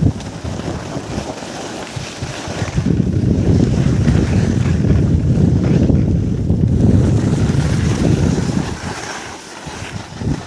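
Wind rushing over a microphone carried downhill on skis, a low rumble that swells about three seconds in and eases off near the end.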